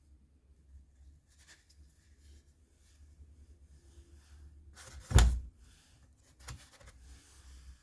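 A single sharp thump with a short rubbing scrape about five seconds in, and a smaller knock about a second and a half later, over faint room tone with a low hum.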